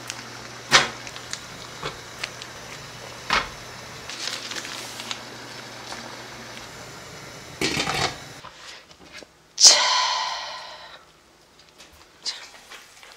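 Frozen dumplings handled out of plastic bags and set into a stainless steel steamer pot: plastic crinkling and light knocks over a steady low hum. Near the end, a sharp metallic clang that rings briefly.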